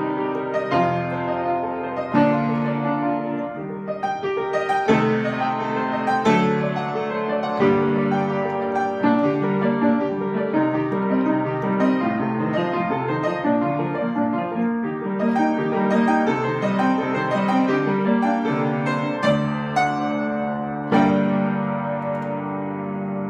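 Upright piano played solo, a continuous run of notes in both hands, with a loud chord struck near the end and left ringing.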